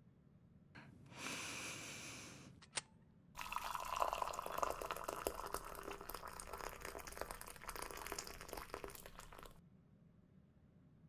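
Hot water poured from a kettle into a glass teacup over a tea bag, a gurgling stream that runs for about six seconds and stops suddenly. Before it there is a shorter hiss and a single click.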